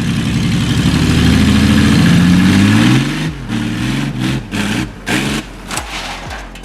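Truck engine working hard under load, its pitch held and slowly rising for about three seconds, then dropping off and revved again in several short bursts.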